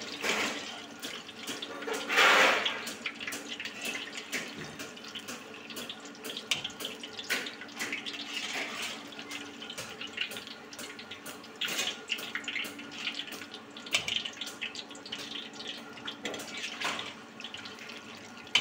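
Batter-coated paneer pieces deep-frying in hot oil: a steady sizzle thick with small crackling pops, swelling louder about two seconds in.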